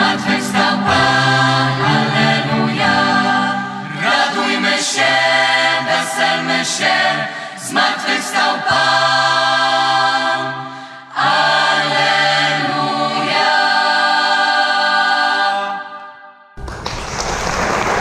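Choir singing, the piece ending about fifteen and a half seconds in, followed by audience applause that starts near the end.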